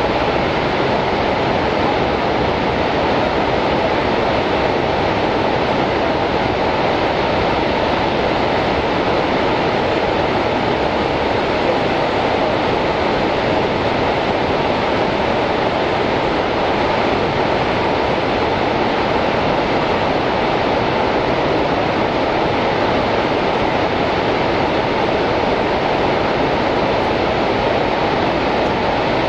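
The American Falls at Niagara: a loud, steady rush of heavily falling water, even and unbroken, with no separate splashes or events standing out.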